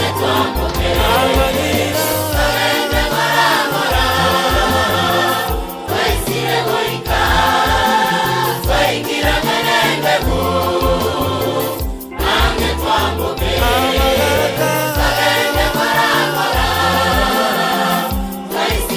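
A choir singing a gospel song in harmony, the phrases pausing briefly about every six seconds.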